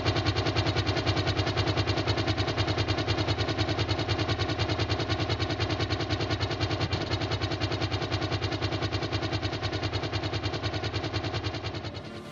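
Helicopter in flight, with a rapid regular beating of the rotor over steady turbine noise, heard from outside the airframe; it fades away near the end.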